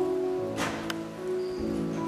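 Recorded song playing over a theatre sound system for a solo dance routine, an instrumental stretch of sustained chords that shift about half a second in and again near the end. A short hiss and a sharp click come about halfway through.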